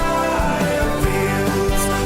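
Instrumental music with a steady beat under held notes.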